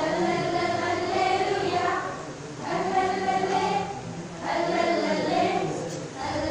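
A group of boys singing together as a small children's choir, in phrases with short breaks about two and four seconds in.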